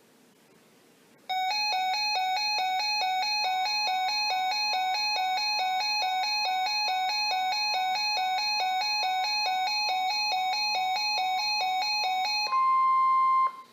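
Electronic emergency alert tones: a repeating chime-like pattern of short beeps, about three a second, runs for about eleven seconds. Then a single steady alarm tone sounds for about a second and cuts off.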